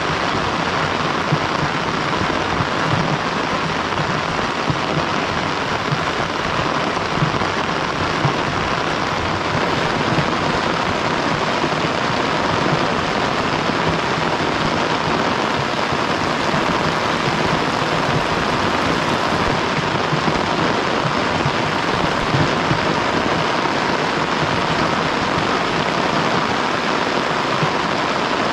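Heavy rain falling steadily and evenly, a dense unbroken hiss of a downpour.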